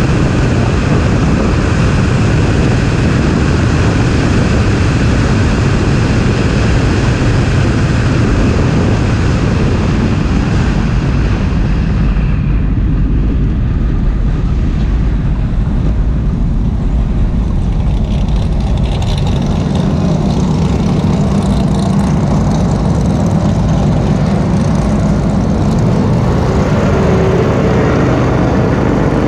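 BMW E30's M20 straight-six engine and wind rush on the hood-mounted camera as the car runs down the straight. About halfway through it eases off and slows, and the engine settles to a low, steady idle-like tone as the car stops in a queue.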